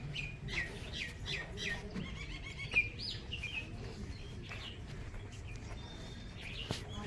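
Small birds chirping in short repeated calls: a quick series over the first two seconds, a chattering run about three seconds in, and more chirps near the end.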